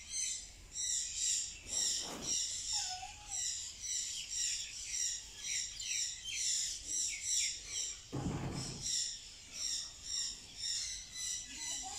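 Small birds chirping over and over, about two chirps a second, with a brief low bump about eight seconds in.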